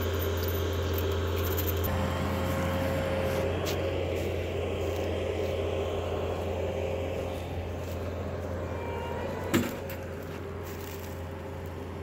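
Tracked skid steer's engine running steadily with a low hum, with one sharp knock about nine and a half seconds in.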